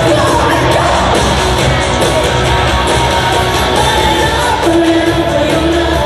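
Live pop-rock band with electric guitar and a woman singing over an arena sound system, with the crowd yelling and cheering over the music.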